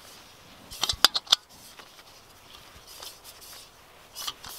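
Small metal clicks and scrapes from a Jetboil backpacking stove burner being handled and turned on a screw-on gas canister. There is a quick cluster of sharp clicks about a second in, faint rubbing after it, and a few more clicks near the end.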